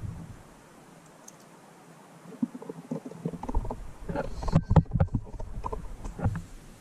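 Hard plastic parts of a Dyson DC43 vacuum being handled and fitted together: quiet for the first few seconds, then a run of uneven knocks and clicks from about three seconds in.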